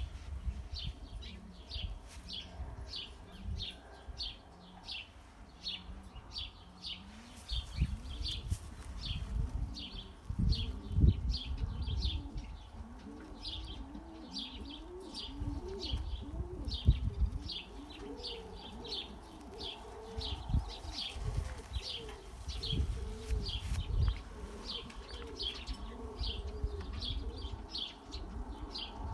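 Pigeons cooing, a run of rising-and-falling coos through the middle, over steady high bird chirps repeated about twice a second. Occasional low bumps come from handling close to the microphone.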